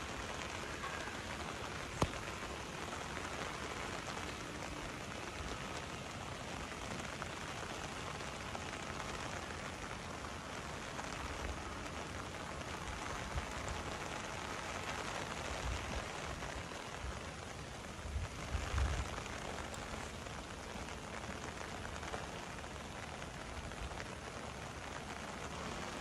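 Steady rain falling, an even hiss, with a single sharp click about two seconds in and a few brief low bumps about two-thirds of the way through.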